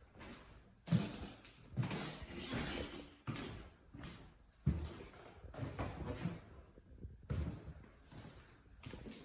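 Footsteps on a bare hardwood floor in an empty room: heavy steps landing about once a second.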